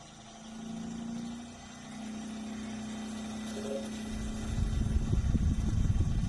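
Hitachi Yutaki S80 heat pump starting up: a steady hum, then about four seconds in a loud, rough low rumble sets in. This is the strange startup noise of the brand-new unit.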